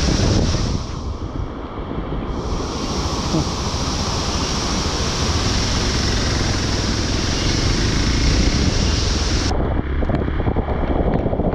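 Steady rush of a fast-flowing stream with wind buffeting the microphone; the hiss dulls abruptly about two seconds before the end.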